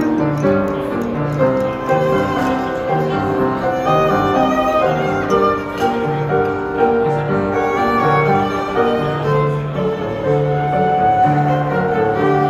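Violin melody with piano accompaniment, played live by a small ensemble, the violin bowed over a steady repeating bass pattern.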